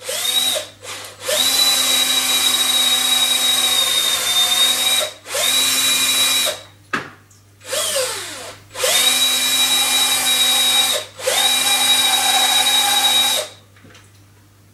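Hand-held electric drill boring out a chess pawn's metal base, run in about six trigger bursts, mostly one to four seconds long. Each burst is a steady whine that rises in pitch at the start and falls as the trigger is released.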